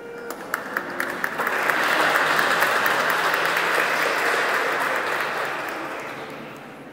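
Congregation applauding: a few scattered claps at first, swelling into full applause about a second and a half in, then dying away near the end.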